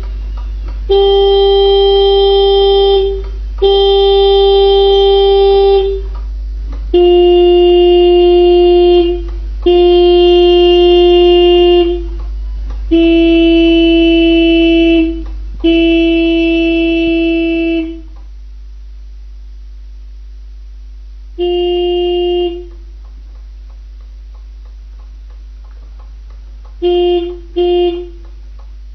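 Tractor horns sounding in long steady blasts of two to three seconds each, one after another. The horn blasts are slightly higher-pitched for the first few and lower after about seven seconds, then stop for a while. One shorter blast comes after that, and two quick beeps near the end.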